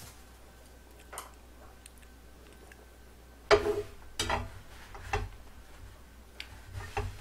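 Metal tongs clicking and knocking against a frying pan several times, starting about halfway through, as a paper towel laid over the pan is lifted and moved. Before that, only a few faint clicks.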